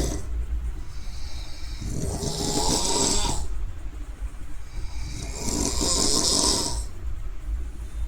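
A person snoring: two long rattling snores about three and a half seconds apart, each with a hiss of breath, and the tail of another snore at the very start.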